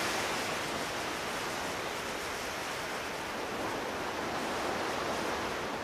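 Ocean surf breaking and washing in, a steady wash of noise with no distinct events.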